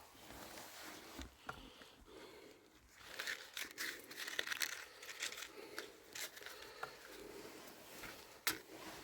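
Crinkling and tearing with scattered crackles and a sharp snap near the end, as material is crumpled and broken to kindle a fire.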